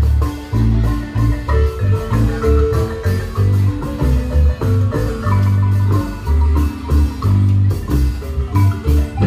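Marimba band playing a lively tune: quick runs of struck wooden-bar notes over deep bass notes that fall in a steady rhythm.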